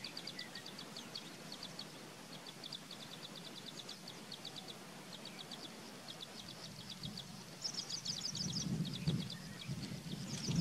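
A small bird calling in rapid strings of short, high chirps, several quick bouts with brief gaps. A low rumble rises near the end.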